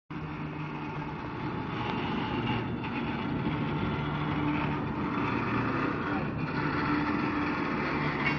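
A diesel locomotive engine runs steadily, giving a constant low hum under a rushing noise.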